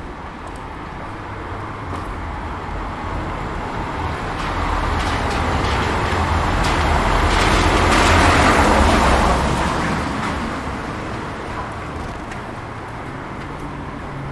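A van drives past on wet cobblestones: its engine and tyre noise swell, are loudest about eight seconds in, then fade away.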